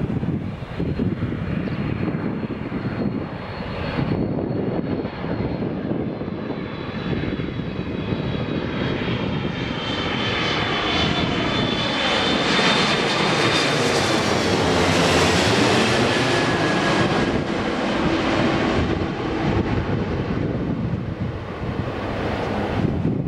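Airbus A330-300 airliner on final approach with landing gear down, passing low overhead. The jet engine noise builds to its loudest just past the middle, and the high engine whine drops in pitch as the aircraft goes by and away.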